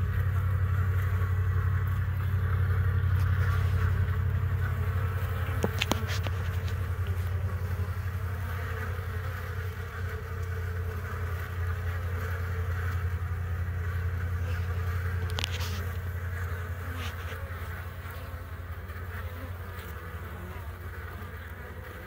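Honeybees buzzing steadily at a hive entrance as they fly in and out, over a continuous low hum. A couple of faint clicks come through, about six seconds in and again in the middle.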